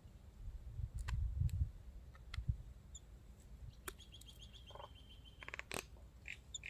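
Birds calling: a rapid high trill lasting about a second and a half, about four seconds in, and a few short chirps near the end, among scattered sharp clicks and low thumps.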